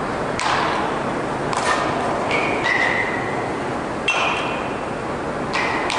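Baseball bats striking balls in batting cages: about six sharp pings over a few seconds, several ringing briefly, over a steady hall noise.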